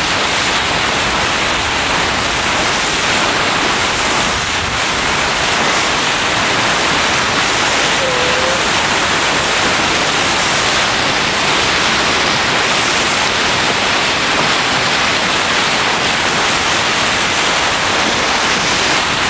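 Loud, steady rushing of water churned up by a moving boat's bow wave, mixed with air rushing past. A single short squeak sounds faintly about eight seconds in.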